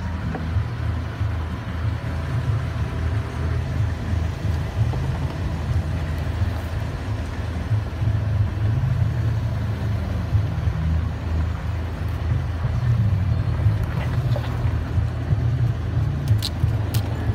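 Dodge V10 pickup truck's engine running at a slow crawl, a steady low rumble. A couple of brief high scratchy sounds come near the end.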